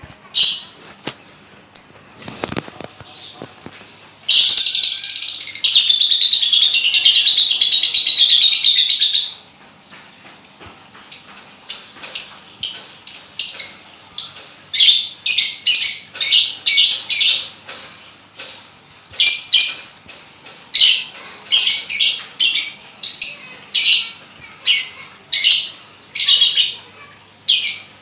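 Lovebird calling: a few sharp, high chirps, then a continuous chattering trill lasting about five seconds, followed by a long series of loud, sharp chirps at about two a second.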